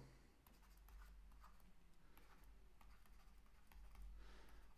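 Near silence with faint scattered clicks and taps from handwriting on a digital whiteboard, and a brief soft hiss near the end.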